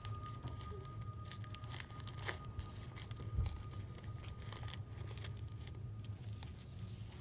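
Glitter ribbon rustling and crinkling as it is threaded over and under the bars of a plastic weaving frame, with scattered light clicks, over a low steady hum.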